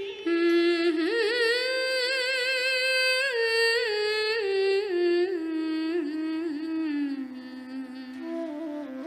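A singer holding long, ornamented notes in a slow melodic line of Odissi dance music. The pitch bends and slides, stepping gradually lower across the phrase, and a second, higher melodic line comes in near the end.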